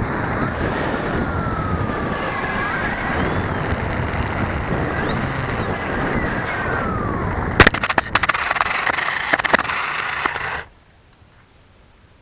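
Electric motors and propellers of a small RC FPV aircraft heard through its onboard keychain camera's microphone: a rough buzz mixed with wind rush, with whines that slide up and down in pitch as the throttle changes. The props are unbalanced. A few sharp knocks come about seven and a half seconds in, and the sound cuts off suddenly about ten and a half seconds in.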